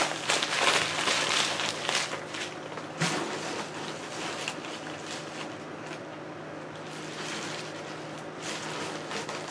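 Packaging being handled and crumpled, a run of crinkling and rustling crackles that thins out after about three or four seconds, leaving quieter room noise with a low hum.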